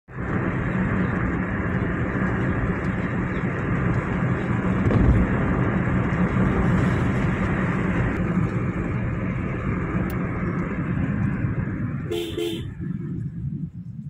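Steady rumble of road and wind noise from a car driving along, heard from inside the cabin. A short horn toot comes about twelve seconds in, and the noise falls away near the end.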